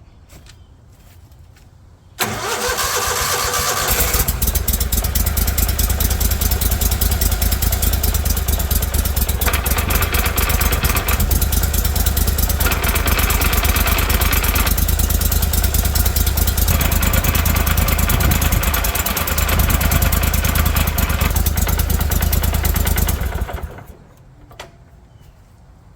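Surface-drive mud motor engine started up, running for about twenty seconds to spin its newly fitted two-blade propeller as a test, then shut off near the end.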